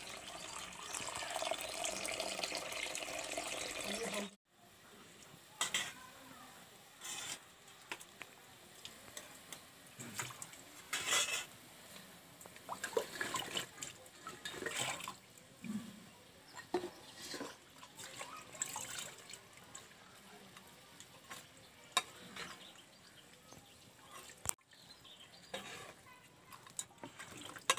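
Water pouring in a stream into a hot steel kadai of fried masala gravy: a steady splashing pour that cuts off suddenly about four seconds in. After that come scattered clinks and scrapes of a steel plate and a spatula against the pan as fried tangra fish are tipped into the gravy and stirred.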